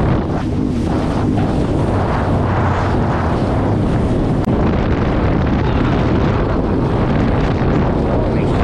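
Sea-Doo Spark Trixx personal watercraft running steadily at speed across choppy water. Its engine drone mixes with rushing water and heavy wind on the microphone.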